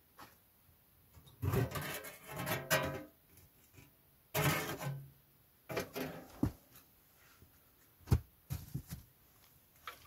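Makeshift sheet-steel stove door scraping and rattling against the brick stove as it is worked on its wire hook. There are two longer rattling scrapes, then a run of short sharp clicks and knocks.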